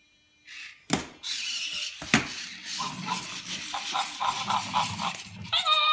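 Zoomer robot chimp toy being handled: two sharp knocks about one and two seconds in, then a few seconds of its electronic chatter over a hiss, ending in a short high squeal.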